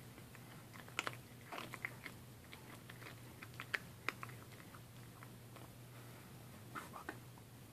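A cat biting and chewing into a dead gopher: irregular soft crunches and tooth clicks, in uneven clusters, over a steady low hum.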